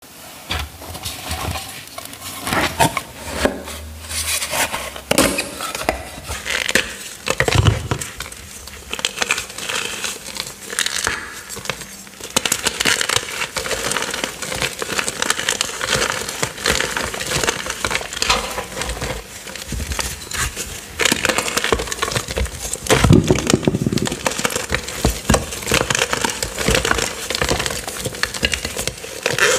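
Purple gym chalk discs topped with cornstarch being crushed by hand: dense, continuous crunching and crackling as the chalk breaks into chunks and crumbles into powder.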